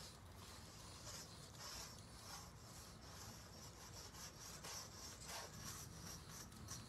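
Sidewalk chalk scraping on a concrete sidewalk in quick, irregular back-and-forth shading strokes, faint.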